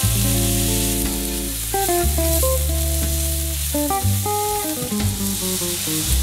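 Food sizzling in a frying pan, a steady high hiss under background music with held notes and a deep bass line.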